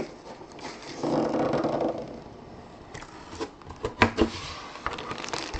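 A cardboard box and its packaging being opened and handled by hand: scattered knocks and clicks, the sharpest about four seconds in.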